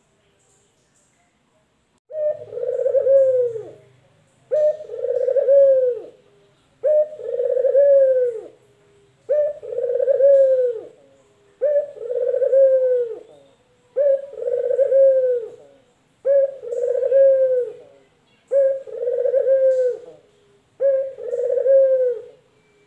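Male collared dove ('puter lokal') cooing. After about two seconds of quiet come nine evenly repeated coos, roughly one every two and a third seconds, each phrase rising then falling in pitch.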